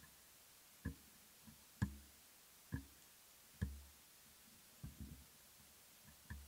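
Soft knocks on the microphone and table setup, about one a second, each a low thump with a faint click on top, then a quick run of smaller taps about five seconds in.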